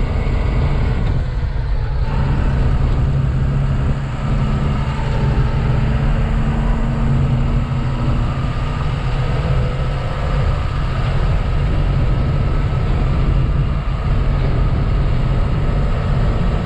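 Tata diesel truck driving on a concrete highway, heard from inside the cab: a steady, low-pitched drone of engine and road noise.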